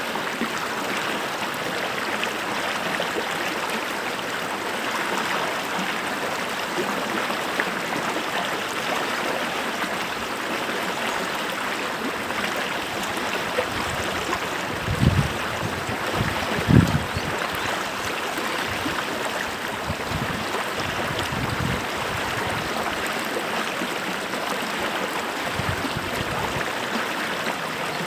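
A stream of running water, flowing and splashing steadily. A few short low thuds come in around the middle, two of them louder than the flow.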